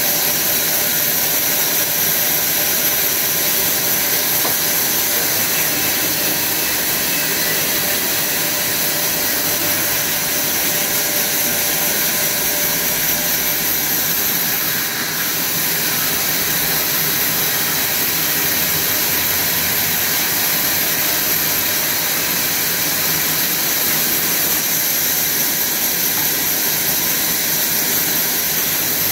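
Sawmill band saw running steadily while its blade cuts through a log on the carriage: a continuous loud machine hiss with a high thin whine, dipping slightly about halfway through.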